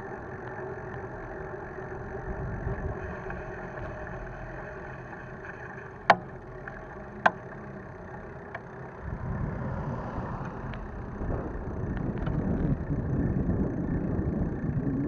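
Riding noise from a camera mounted on a bicycle's handlebars: a steady hum over tyre and wind rumble, with two sharp clicks about six and seven seconds in. The low rumble grows heavier and rougher through the second half.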